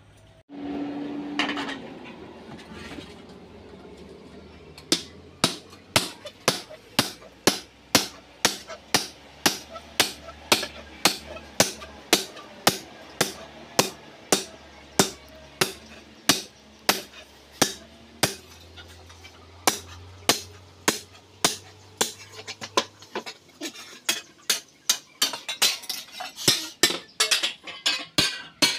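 Blacksmith's hammers striking a steel hoe and the saw blade being joined to it on an anvil, each blow ringing briefly. The strikes start about five seconds in at roughly two a second and come faster near the end.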